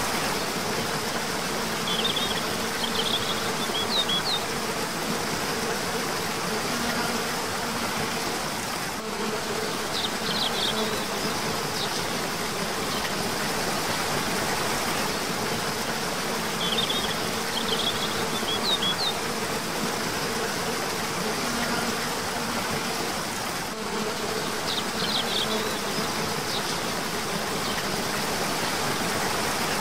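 Steady rush of a cascading waterfall, with a bird's short clusters of quick, high chirps recurring every several seconds.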